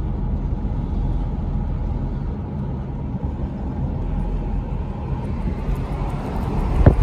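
Steady road noise inside a moving car: a low rumble of tyres and engine, with a single sharp knock near the end.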